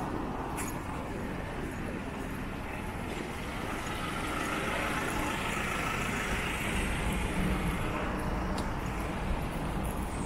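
Road traffic on a busy multi-lane street: cars and trucks passing with a steady tyre and engine noise that swells for a few seconds in the middle.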